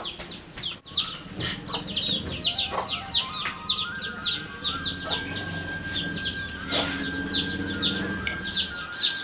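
Small birds chirping rapidly and without a break: short falling chirps, about four or five a second. A steady high tone joins about three seconds in.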